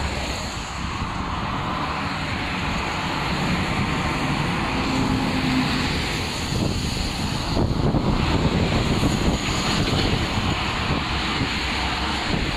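Road traffic passing: engine and tyre noise of cars and trucks on a multi-lane road, swelling about two-thirds of the way through as a semi-truck goes by.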